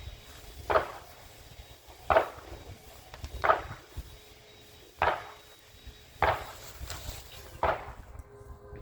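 Steady hammering, six sharp blows about a second and a half apart, as an electric motor is knocked apart for scrap.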